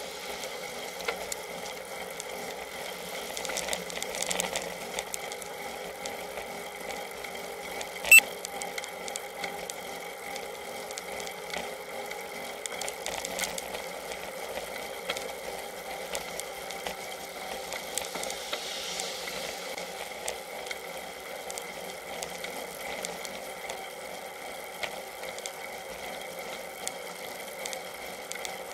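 Road bicycle riding on asphalt, heard through a camera mounted on the bike: a steady rattle and road vibration with scattered small clicks. One sharp knock comes about eight seconds in.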